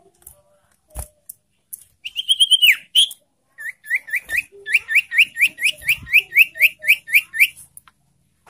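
Common iora calling: a long high whistled note that drops at the end, then a fast series of about fourteen short upslurred whistles, roughly four a second.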